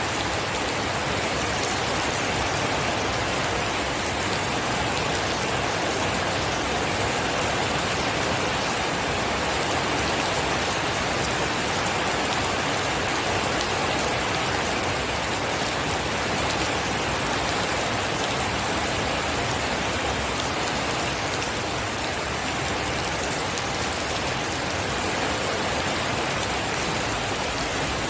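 Steady heavy rain falling, an even dense hiss with scattered drop ticks.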